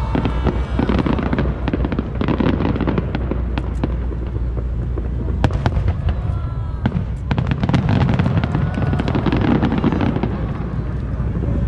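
Aerial fireworks shells bursting over and over, with deep booms and crackling. A fast run of sharp pops comes about halfway through.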